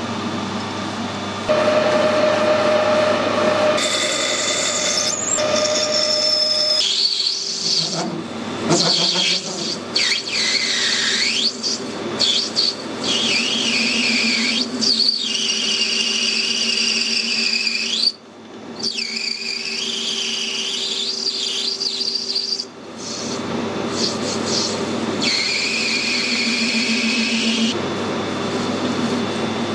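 Metal lathe running while the tool parts off and turns a brass bar, with a shrill squeal from the cut that wavers in pitch and breaks off and restarts a few times.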